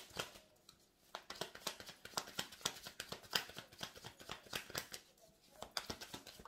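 A deck of tarot cards being shuffled by hand: a rapid, irregular run of light card clicks and flicks.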